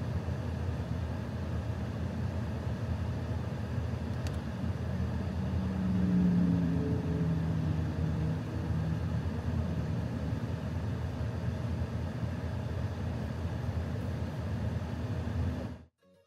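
Steady low hum of the Range Rover's 4.4-litre twin-turbo V8 running at a standstill, heard inside the cabin. It swells a little about six seconds in and cuts off suddenly near the end.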